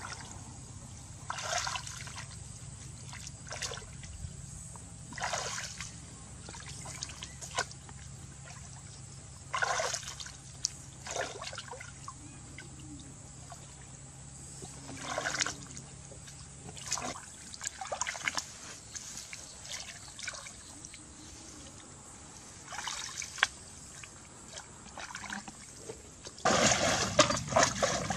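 Shallow muddy water splashing and sloshing as hands grope through it, in short separate bursts every few seconds. Near the end a plastic bucket is worked through the water, a louder, continuous splashing.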